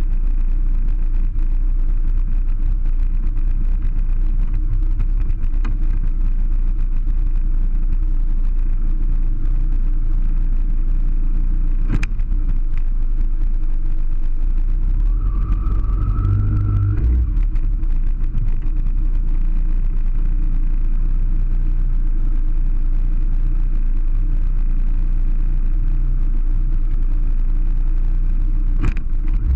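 Kawasaki ZX-10R sportbike's inline-four engine running steadily at low speed, a continuous low rumble. Two sharp clicks stand out, one about halfway through and one near the end, along with a short rising whine in between.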